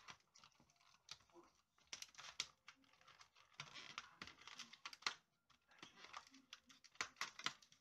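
Fingernails tapping, picking and scratching at the cardboard door of an advent calendar, faint scattered clicks with a longer stretch of scratching and light tearing about halfway through.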